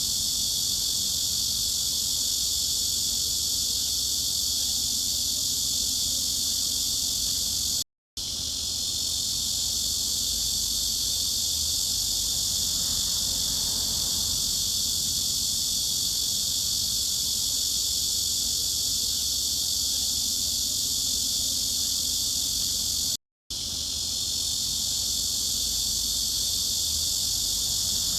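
Steady, high-pitched buzzing drone of a cicada chorus. It cuts out for a split second twice.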